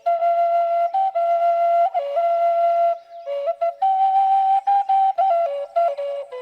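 Solo flute playing a melody, one line of held notes stepping up and down, with no accompaniment and a brief break about three seconds in.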